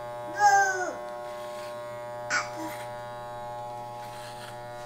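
Corded electric hair clippers running with a steady buzzing hum while cutting hair. A brief voice cuts in about half a second in, and there is a short sharp sound a little over two seconds in.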